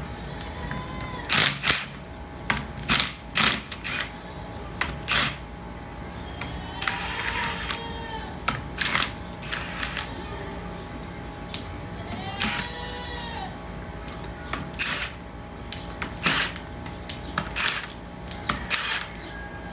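Sharp metallic clinks and knocks of hand tools and pump parts being handled during a hydraulic pump teardown, coming singly and irregularly a dozen or so times.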